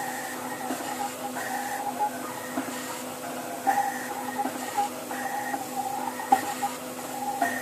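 nScrypt 3Dn tabletop dispenser's motion stage running as it dispenses silver paste in short dashed lines: a steady machine whine whose tones switch on and off every half second to a second as the head starts and stops, with a few faint clicks.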